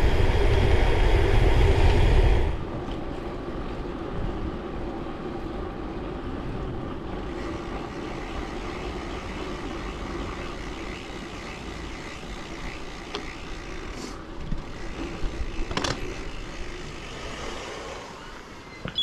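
Wind rushing over the microphone of a bicycle-mounted action camera while riding. It cuts down sharply after about two and a half seconds to a quieter steady rumble of road and traffic noise, with a couple of sharp clicks near the end.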